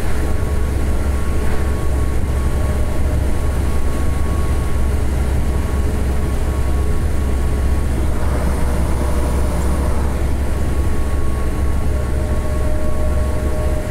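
Truck cab interior while driving at a steady speed: a constant low engine and road drone with a faint steady whine over it.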